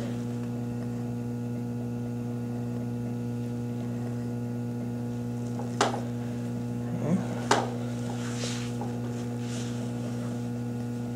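Steady electrical mains hum, with two sharp clicks about six and seven and a half seconds in and a few faint handling noises between them.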